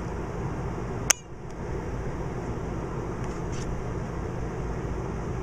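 Steady low hum of grow-room equipment, with one sharp click about a second in, after which the hum briefly drops away before coming back.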